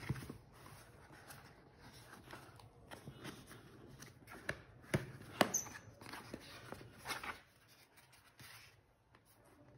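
Cardboard shipping box being handled and turned over on a bedsheet: scattered light taps, knocks and rustles, the sharpest a couple of clicks about five seconds in.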